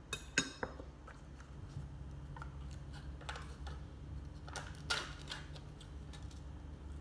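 Tableware clicking and clattering as a spoon and a small rice container are handled and set down, with the sharpest click about half a second in. A crinkly peeling sound follows a little before the five-second mark as the foil lid of a yogurt cup is pulled off. A low steady hum runs underneath.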